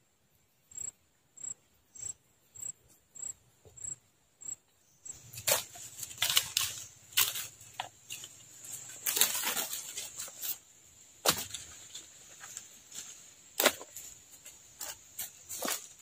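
Dry leaves and twigs rustling and crackling as a hand waves and handles them over a fire pit's ashes, with irregular sharp snaps and flaps. Before that comes a regular run of soft clicks, about one and a half a second, for the first five seconds.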